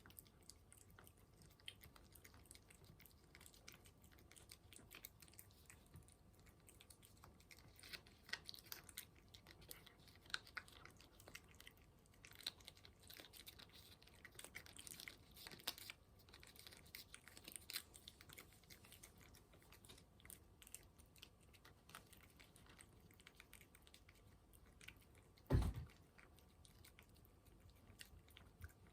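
A cat chewing food, faint soft crunching and smacking that comes and goes, busiest in the middle stretch. Near the end there is one louder dull thump.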